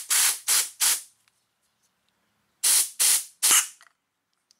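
Compressed-air blow gun pressed into the fluid port of a motorcycle brake caliper, hissing in short puffs: three in the first second, then three more about two and a half seconds in. The air is forcing out pistons that are stuck tight with gritty, crusty corrosion.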